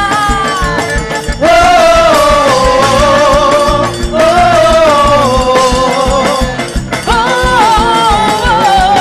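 Quadrilha junina music: a melody of long held notes that waver and glide, over a steady low drum beat.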